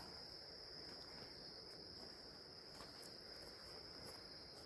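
Insects chirring in a faint, steady, unbroken high-pitched drone, with a few faint ticks.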